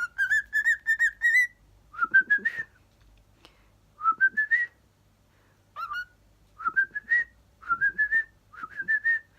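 Cockatiel whistling a learned tune: a longer run of short rising notes, then a series of brief phrases that each climb and end on a held note, about one every second or two.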